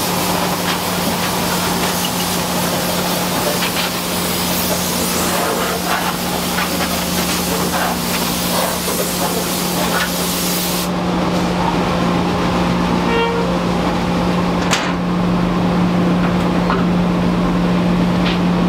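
Compressed air hissing from an air blow gun, blowing dust off the wide belt sander; the hiss cuts off suddenly about eleven seconds in. A steady machine hum runs underneath throughout.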